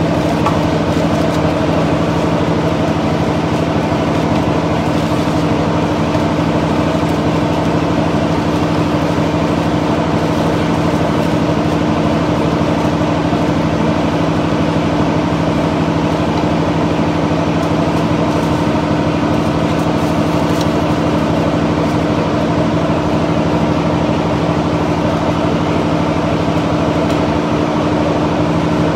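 A steady machine hum with a constant low drone.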